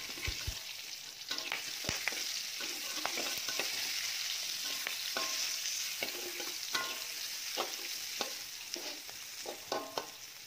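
Lemongrass and kaffir lime leaves sizzling in a hot wok, a steady hiss throughout, while a spatula scrapes and clinks against the wok in many short, irregular strokes, some with a brief metallic ring; onion and garlic go in about halfway through.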